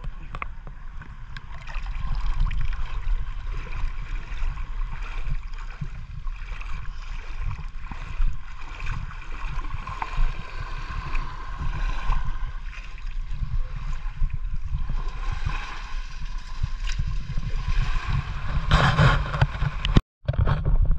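Water sloshing and gurgling close to the microphone, a steady churning noise over a low rumble, cutting out for a moment near the end.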